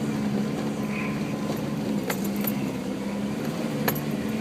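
A four-wheel drive's engine running at steady revs, with a few sharp clicks and rattles, one about two seconds in and another near the end.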